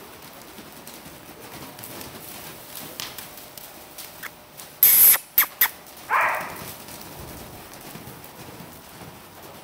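Young Quarter Horse colts moving loose on soft arena footing, their hooves faint under a low background. About five seconds in there is a loud, sharp hiss, then two quick clicks, then a short rush of noise.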